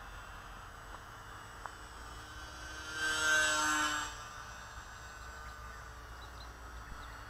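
Small electric RC biplane (E-Flite UMX Pitts) in flight: the motor and propeller give a steady high hum that swells louder for about a second around three seconds in, then falls back. Light wind rumble sits underneath.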